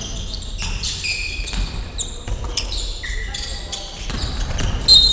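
A basketball being dribbled on a wooden gym floor during play, with short high squeaks of sneakers; the loudest squeak comes near the end.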